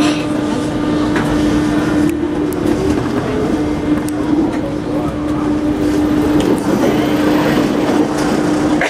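Paris Métro line 8 train, MF 77 stock, moving out of a station into the tunnel: a steady hum over the running noise of steel wheels on rail, with scattered clicks and knocks.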